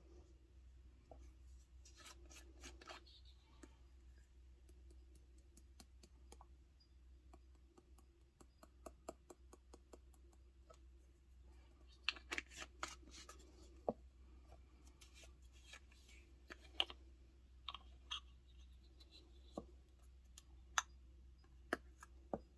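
Faint, irregular clicks, taps and scrapes of a stir stick working colourant into UV resin in small mixing cups, with quick clusters of taps now and then.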